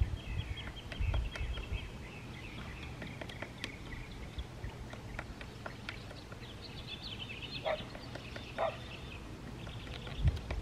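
Small birds twittering in rapid high chirps and trills, with two quick falling calls about three quarters of the way through, over a steady low rumble.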